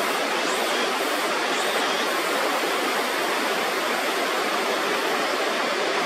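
Water rushing steadily over a river weir, the river swollen by typhoon rain and the weir's roar at its loudest. A few faint, high, short rising chirps come about once a second in the first two seconds.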